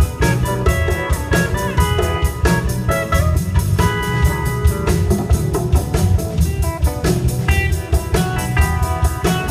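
Live rock band playing an instrumental: electric guitars carry a melody over bass guitar and a steady drum-kit beat.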